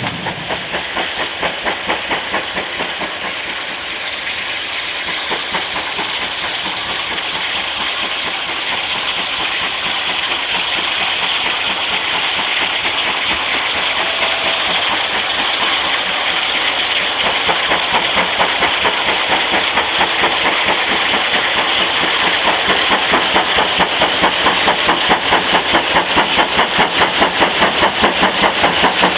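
Steam locomotive hauling a goods train, its exhaust beating in a steady rhythm that grows louder and sharper as it approaches.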